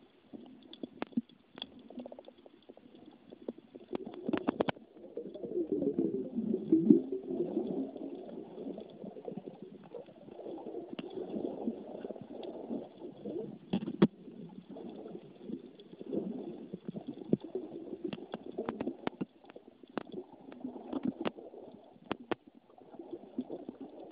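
Muffled underwater gurgling and bubbling, loudest a few seconds in, with scattered sharp clicks throughout.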